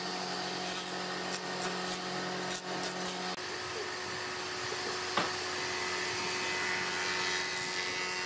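Jointer running steadily as a wide board is fed on edge across its cutterhead, a constant rushing noise with a few light knocks from the board; a low hum under it drops out about three seconds in.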